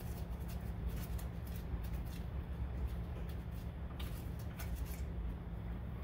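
Faint clicks and light handling noises from a front brake caliper being lifted off the rotor by gloved hands, over a steady low rumble.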